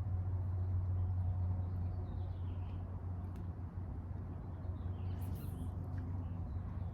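Faint bird chirps, twice, over a steady low rumble.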